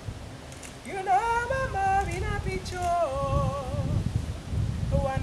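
A woman's voice singing unaccompanied, a slow chant of held, wavering notes that begins about a second in, over a low rumble.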